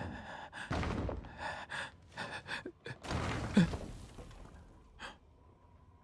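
A man's frightened gasps and sharp breaths: several short ones in quick succession, then a longer, louder one about three seconds in, and a last brief one near the end.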